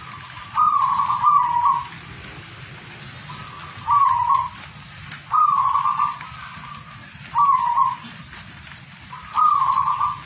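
Caged zebra dove (perkutut) cooing: five short bursts of quick rolling coos, each about half a second to a second long, coming every two seconds or so, over a steady background hiss.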